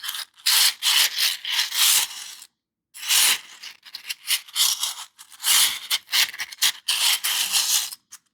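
The segmented plastic pieces of a 3D-printed fidget toy sliding and rattling against each other in repeated bursts as it is turned and the pieces fall back into place. There is a full stop about two and a half seconds in before the rattling resumes.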